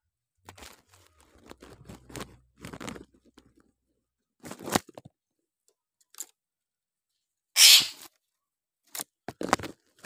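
Irregular rustles, scrapes and knocks in and around a wire bird cage holding a Javan myna, coming in short separate bursts with gaps between them. One louder, harsh, noisy burst comes about three-quarters of the way through.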